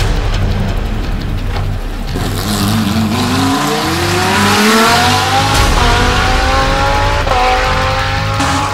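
Lamborghini Gallardo LP600 GT3 race car's V10 engine accelerating hard, its note climbing steadily for several seconds, with an upshift about seven seconds in.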